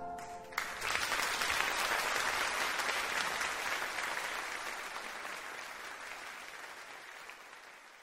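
The last chord of the choir and instruments dies away, then a concert audience breaks into applause about half a second in, the clapping fading away steadily toward the end.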